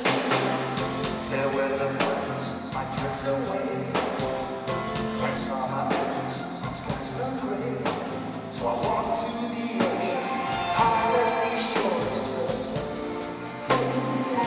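Live performance by a pop band with a concert orchestra: a male lead vocal over a steady beat and bass line, filmed from the audience.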